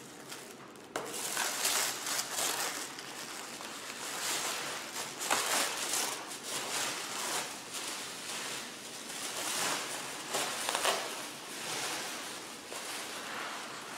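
Paper packaging being torn and unwrapped by hand. It gives an uneven run of crinkling, rustling and ripping.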